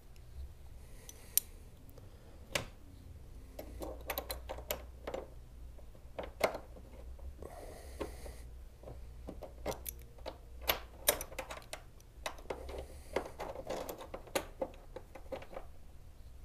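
Irregular clicks and light knocks of a hood-strut mounting bracket and its bolt being worked into place by hand, a few of them sharp and loud, with a couple of brief scrapes.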